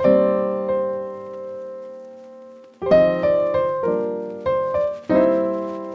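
Background piano music. A chord is struck and left to ring out for nearly three seconds, then a run of chords follows, one about every half second.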